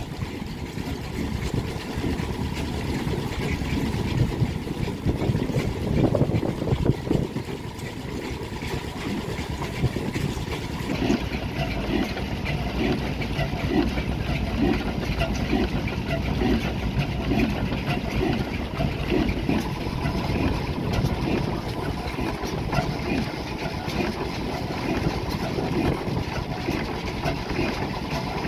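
1905 Hornsby-Akroyd 6.5 hp hot bulb oil engine, a slow single-cylinder horizontal engine, running steadily with a slow, even beat.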